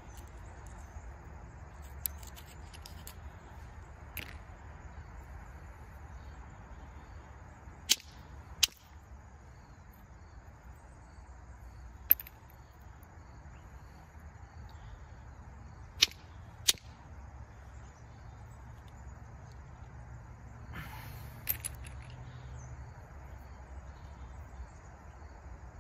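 Flint being pressure-flaked with a copper-tipped flaker: sharp, crisp clicks as small flakes snap off the edge. There are about eight of them, at irregular intervals a few seconds apart.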